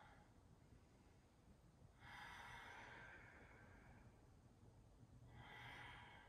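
Faint, slow breathing by one person: a breath about two seconds in and another near the end, with near silence between them.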